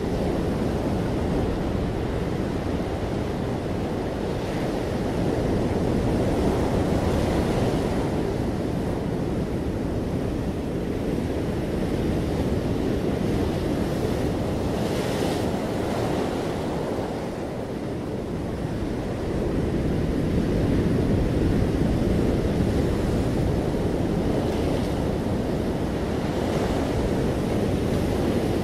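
Ocean surf breaking and washing up a sandy, rocky beach: a continuous rushing wash that swells and eases, going briefly quieter a little past halfway before building again.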